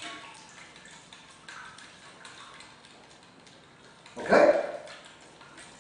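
One short, loud voice-like call about four seconds in, over faint light clicks and taps at the bench.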